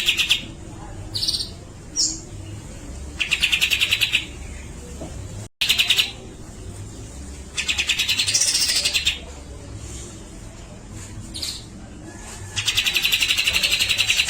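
Grey-cheeked bulbul (cucak jenggot) calling: three harsh, buzzy rattles of about a second and a half each, roughly every four and a half seconds, with short whistled notes between them.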